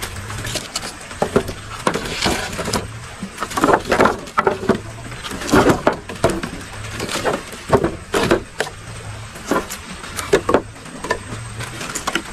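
Dry wooden sticks and branches knocking and clattering as they are laid by hand across a platform of bamboo poles, a string of uneven knocks, thickest through the middle, over a faint low hum.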